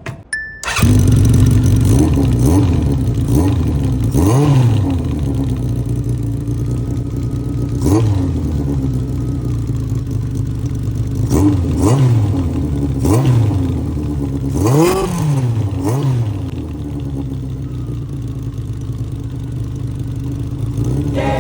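Honda CB750F's air-cooled inline-four idling through a short exhaust fitted with an inner silencer baffle, blipped about nine times, each rev rising and falling straight back to idle. The engine starts being heard just under a second in and settles to a steady idle for the last few seconds.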